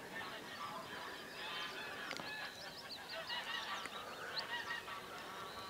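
A flock of geese honking over one another, many short calls overlapping, with small birds chirping higher up.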